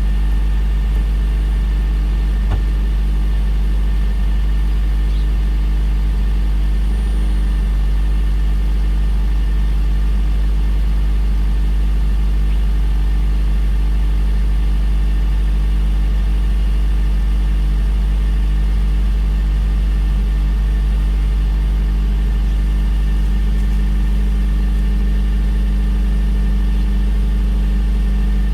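Car engine idling steadily with a constant low hum, typical of the engine settling after a cold start.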